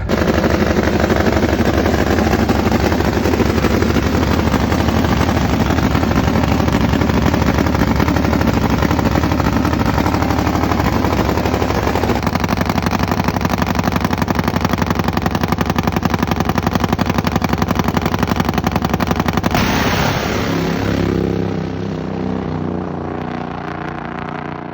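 Top Fuel Harley drag bike's nitromethane-burning V-twin engine running hard through open exhaust, a loud, rapid hammering of firing pulses. About twenty seconds in it drops lower and fades away.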